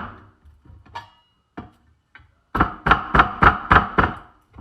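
Whisk clanking against a stainless steel mixing bowl: a run of about six quick metallic strikes, roughly three a second, after a few lighter taps.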